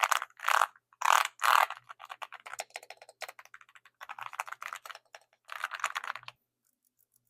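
Fast typing on a Leobog Hi75 mechanical keyboard: a dense run of key clicks with a few louder strokes in the first two seconds, stopping about six seconds in.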